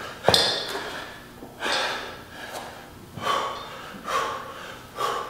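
A man breathing hard through a kettlebell workout: five short, forceful exhalations about a second apart. The first, just after the start, is the sharpest and loudest.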